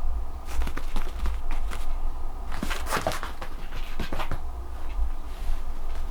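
Bichon Frise puppy's paws and claws tapping and scrabbling on a hard floor in two quick clusters of clicks, over a steady low hum.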